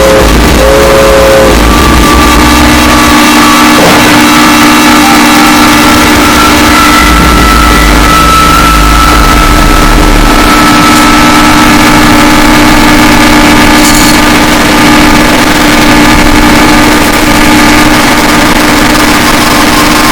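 Harsh noise music: a dense wall of distorted noise held at full loudness, with steady droning tones running through it and a deep rumble that drops out a few seconds in and comes back for a few seconds midway.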